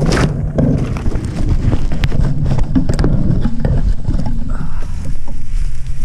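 Rustling grass and hands handling a crashed FPV quadcopter's onboard camera, close against its microphone, with wind noise underneath: a loud, uneven scraping and knocking full of short clicks.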